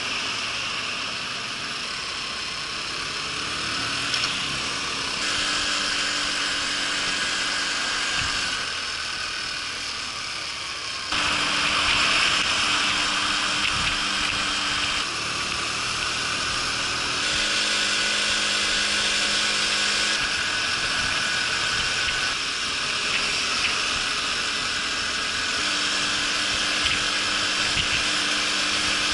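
Honda Super Cub 50's single-cylinder four-stroke engine running at road speed, with wind rush over the bike. The engine pitch and loudness jump abruptly every few seconds as one riding clip cuts to the next.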